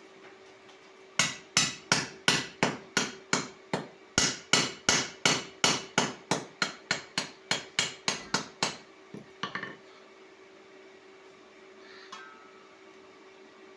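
A hammer striking metal in a steady run of about twenty sharp blows, roughly three a second, ending with a few lighter taps.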